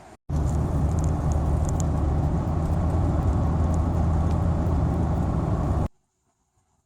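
Steady road and engine noise of a moving car, heavy in the low range. It starts abruptly just after the beginning and cuts off sharply about a second before the end.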